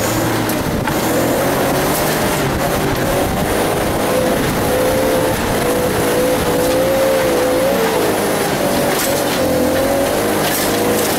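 Off-road 4x4's engine running hard under load, its pitch wavering up and down. A few short knocks sound over it.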